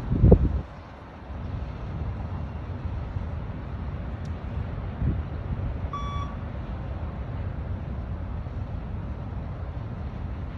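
A single short electronic beep-test signal beep about six seconds in, marking the time by which each shuttle must be completed, over a steady low rumbling background noise. A loud thump sounds just at the start.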